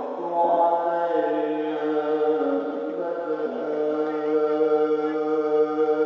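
A man reciting the Quran in melodic tilawah style, drawing out one long ornamented phrase. The pitch steps down about a second in, is then held nearly steady, and the phrase ends near the close.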